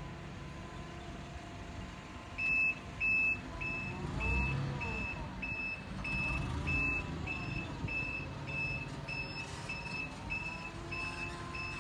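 A vehicle's engine running, its pitch rising and falling twice, while a reversing alarm beeps steadily from about two seconds in, short high beeps a little more than half a second apart, the first two loudest.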